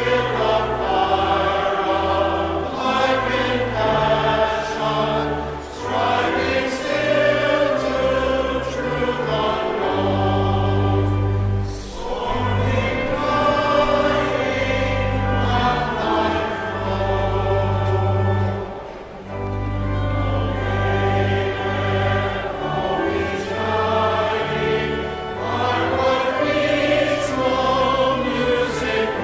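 Choir singing sacred music in phrases, over sustained low bass notes that change in steps.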